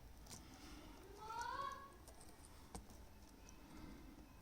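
Mostly quiet, with a few faint clicks of a laptop key's small plastic parts being handled. There is also a short rising chirp in the background about a second and a half in.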